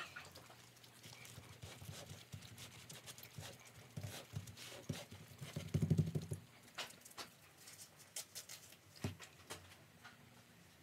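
Gloved hands pressing and smoothing plaster cloth onto a model railway scenery base: faint scattered taps and rustles, with a louder dull pressing bump about six seconds in.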